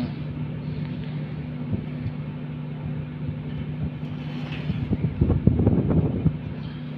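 A steady low machine hum. About five seconds in comes a second and a half of scraping and light knocks, a steel square being shifted and a line marked on a steel plate.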